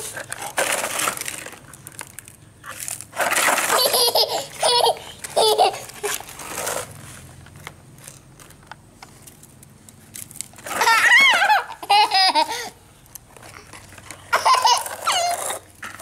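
A toddler laughing in several short, high-pitched bursts, with quieter stretches between.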